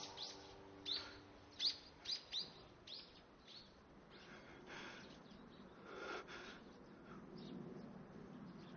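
Faint, short chirps of small birds, several in quick succession over the first three seconds, then fewer, over quiet outdoor background noise.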